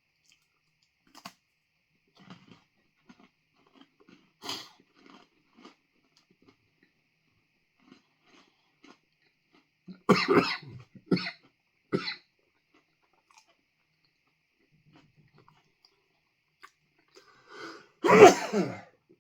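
A man chewing a crunchy freeze-dried ice cream bar, then coughing hard three times about ten seconds in and once more, louder, near the end. The coughs are brought on by the 7-pot Primo pepper dust coating the bar catching his throat.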